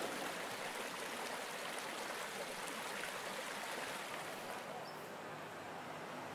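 Steady rushing of river water, an even wash of noise with no clear engine note.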